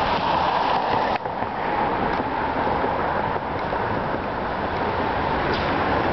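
Steady rushing noise of street traffic, with a brief dip about a second in.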